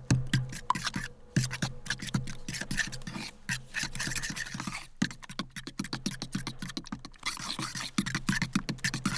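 A metal utensil scraping and clicking rapidly against a dish in quick, uneven strokes, over a steady low hum.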